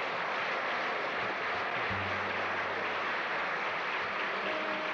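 Audience applause: steady, dense clapping from a large crowd.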